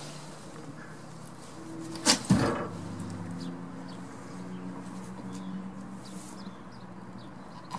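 A nanny goat bleating low and drawn-out to her young kids, with two sharp knocks close together about two seconds in.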